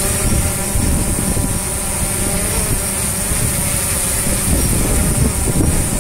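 Autel Evo quadcopter hovering close by, its four propellers giving a steady hum of several tones, with strong gusty wind rumbling on the microphone.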